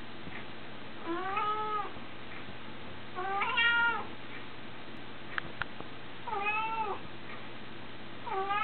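Domestic cat meowing repeatedly: three drawn-out meows about two and a half seconds apart, each rising and then falling in pitch, and a fourth starting near the end.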